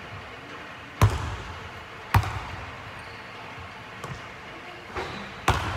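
Basketball striking hands and a hardwood gym floor: loud thuds about one and two seconds in, a couple of softer knocks, then another loud thud near the end. Each one rings briefly in the large hall.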